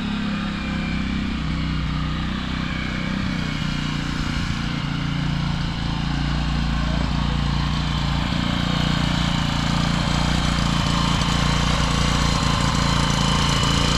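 An engine running steadily, growing a little louder toward the end.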